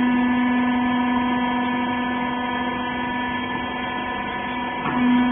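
Rag baler's hydraulic power unit (electric motor and pump) running with a steady hum: one strong low tone with several fainter steady tones above it. Near the end the tone breaks off briefly and comes back louder.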